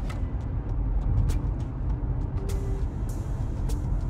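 A moving car heard from inside the cabin: a steady low rumble of road and engine noise, with a few light ticks scattered through it.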